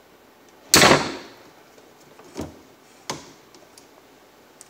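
Diagonal cutters snipping zip ties on a small two-stroke engine: one loud sharp snap with a short ringing tail about a second in, then two fainter clicks.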